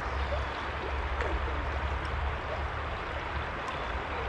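Steady rush of a flowing river, with a low rumble underneath throughout.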